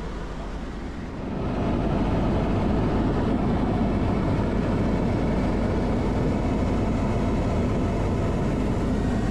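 Helicopter in flight: a steady rush of rotor, engine and wind noise that gets louder about a second in and then holds steady.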